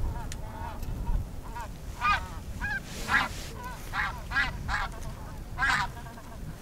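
Snow goose calls: a string of short, high, nasal yelps repeating every half second or so, over a low rumble of wind on the microphone.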